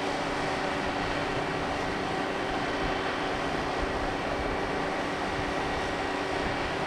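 Steady mechanical drone of a cruise ship's machinery: a constant rushing noise with several steady humming tones through it, unchanging throughout.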